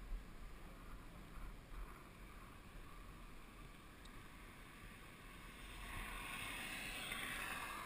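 Faint, muffled wind and rolling road noise picked up by a helmet-mounted action camera in its housing while riding. It grows louder from about six seconds in.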